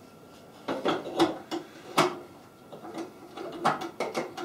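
A series of light clicks and knocks from the metal bread pan being fitted and seated into a Redmond RBM-M1902 bread machine, the loudest about two seconds in.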